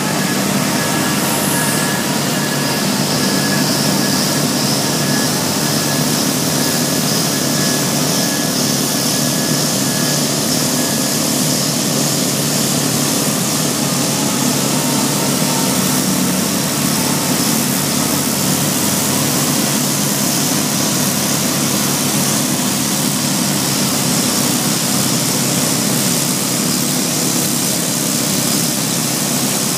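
The heavy diesel engine of a XIAJIN XJ968-28 forklift loader, a quarry block handler, running loudly and steadily without a break.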